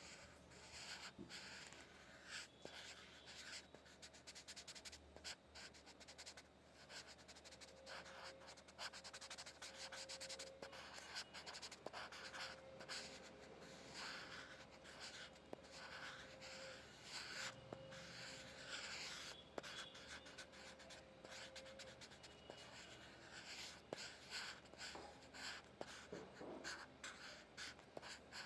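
Pencil lead scratching on paper in quick, irregular strokes, faint and close.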